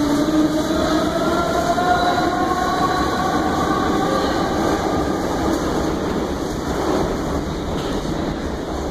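Metro train pulling away: a whine of several tones rising together in pitch over the first few seconds, then fading into a steady rumble of running noise.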